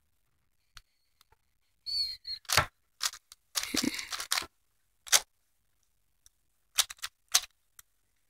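A plastic 4x4 Rubik's cube being turned by hand: irregular clicks and clacks of its layers moving, with a quicker run of turns about four seconds in.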